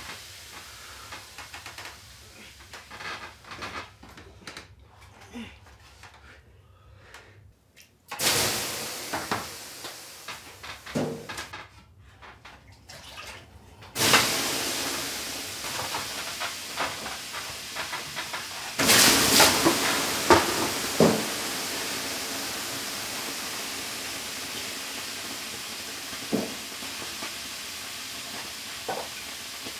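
Water thrown onto hot sauna stove stones, three times, each throw bursting into a loud hiss of steam that dies away slowly over several seconds, with small splashes and knocks of the ladle and bucket between.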